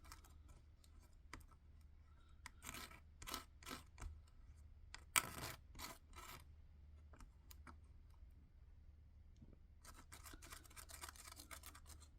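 Faint scraping and scratching of a blade stirring two-part epoxy, with short strokes coming in two spells, a few seconds in and again near the end.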